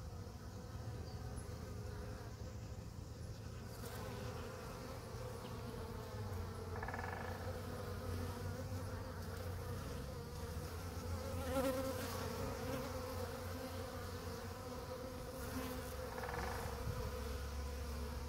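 Many honeybees buzzing in a steady hum as they crowd around a sugar-syrup feeding spot. Single bees fly close past now and then, making a few brief louder swells, the loudest about twelve seconds in.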